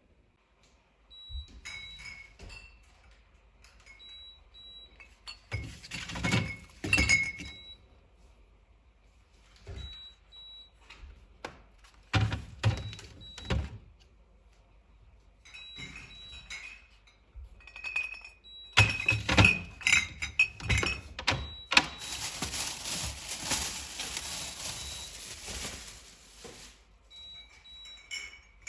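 Kitchen handling sounds: dishes and glassware knocked and clinked down in scattered bursts, with a steady rushing hiss for about five seconds two-thirds of the way in.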